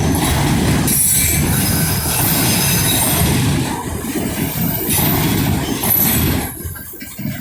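Norfolk Southern freight train rolling past: a steady rumble and clatter of the cars' wheels over the rails, with high-pitched wheel squeal coming and going. The sound dips briefly near the end.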